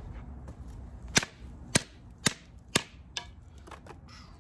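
Work Tuff Gear Nomad fixed-blade field knife chopping into a small branch resting on a wooden log round: about five sharp chops, roughly two a second, starting about a second in, the last one lighter.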